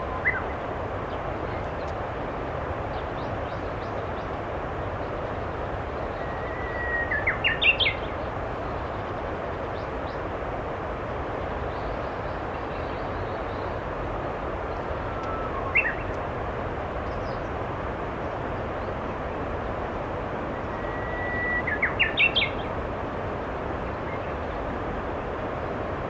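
Japanese bush warbler singing its hō-hokekyo song: a held whistle followed by a quick flourish of rising notes, three phrases spaced several seconds apart, over steady background noise.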